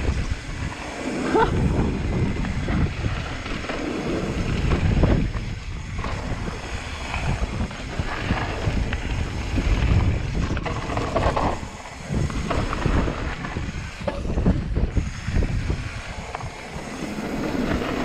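Wind buffeting an action camera's microphone while a mountain bike rolls fast downhill over a gravel trail, with tyre rumble and rattles from the bike coming and going in uneven surges.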